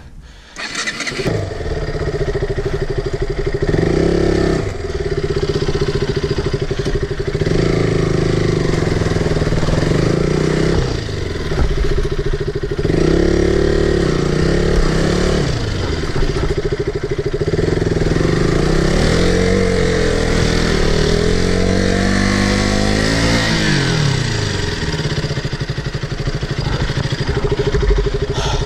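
Off-road motorcycle engine revving hard, rising and falling in pitch again and again as the bike labours up a very steep trail.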